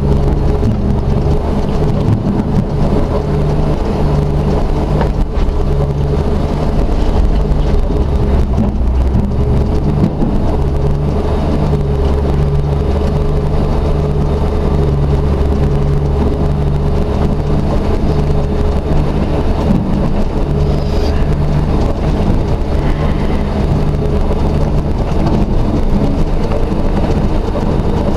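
Truck engine running steadily, a low drone with a faint steady whine above it, as the truck hauls a log.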